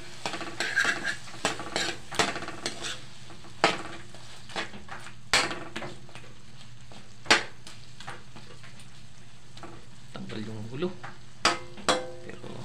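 A metal utensil scraping and clacking against a wok while stirring shrimp in a thick tomato-paste sauce, with a soft sizzle underneath. The clacks come irregularly, a second or more apart, over a faint steady hum.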